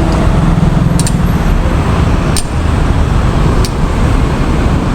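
Heavy construction machinery's diesel engine running with a steady low rumble, with a few sharp clicks spaced about a second apart.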